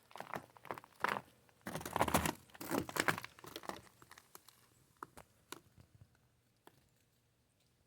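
Squirrel scrabbling and rustling inside a bird feeder, a run of crinkling and crunching noises with many small clicks, heaviest in the first few seconds and thinning out to scattered ticks.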